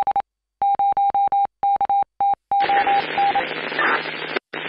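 Radio-style beeping: one steady tone keyed in short and longer pulses, like Morse code, with a click at each pulse. About two and a half seconds in, radio static hiss takes over.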